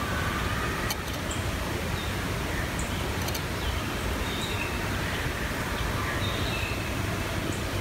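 Woodland ambience: a steady rushing hiss with short bird chirps scattered through it and a few faint clicks.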